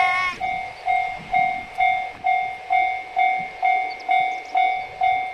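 Japanese railway level-crossing warning bell: an electronic clanging tone repeating steadily about twice a second.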